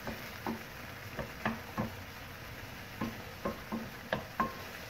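Wooden spatula knocking and scraping against a frying pan while chicken mince and chopped vegetables are stirred, about a dozen short strokes at an uneven pace, over a faint sizzle of the food frying.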